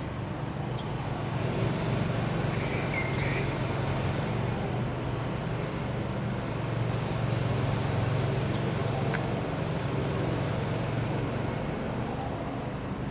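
Steady background din of city traffic: a low rumble with a hiss over it.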